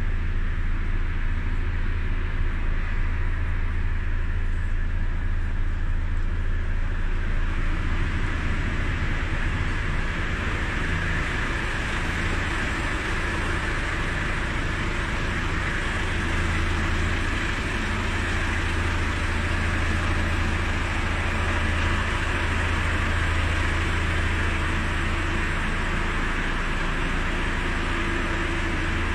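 Volvo FH16's 16-litre diesel engine idling: a steady low rumble, with a hiss above it that grows louder about ten seconds in.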